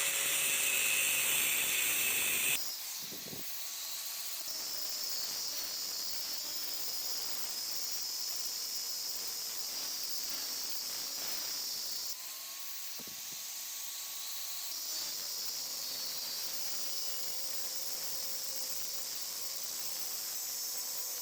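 Steady high-pitched hiss with no clear rhythm or impacts. It shifts abruptly twice, about two and a half seconds in and again around twelve seconds.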